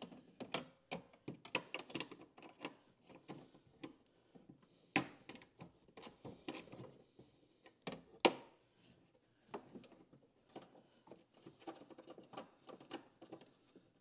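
Ratchet wrench clicking in short, irregular runs with small metallic knocks, as the 10 mm nuts on a kei truck's door handle are worked loose.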